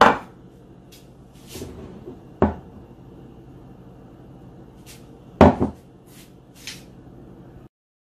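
Kitchenware being handled on a wooden counter: a few sharp knocks and clinks of a glass coffee mug and a steel milk-frothing pitcher, the loudest a double knock about halfway through, over a steady low hum. The sound cuts off abruptly just before the end.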